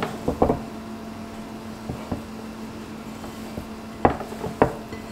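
Hands kneading ground beef with shredded cheese and butter in a glass bowl: soft squishing, with a few sharp knocks against the glass, two of them close together near the end.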